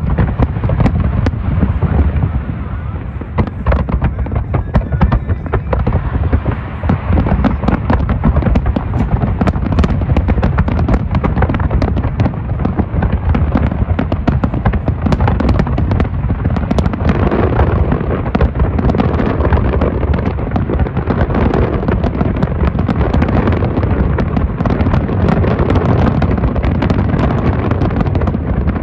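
Big fireworks display: aerial shells bursting in rapid, overlapping volleys, many sharp bangs over a continuous deep rumble of booms.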